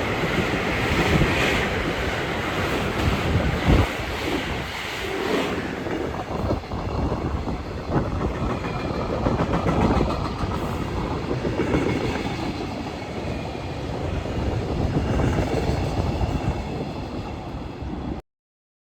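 JR train running along the tracks, its wheels rumbling and clacking over the rails with a few sharp knocks. The sound cuts off abruptly near the end.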